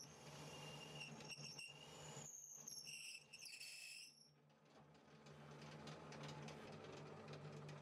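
Faint drill press running as its bit bores a tuner hole through a wooden guitar neck's headstock. A low steady motor hum is joined by a thin high whine from about one to four seconds in.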